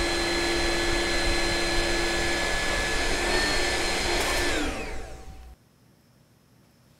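Vacuum cleaner motor running with a steady whine, then switched off about four and a half seconds in: the whine falls in pitch as the motor spins down and stops about a second later.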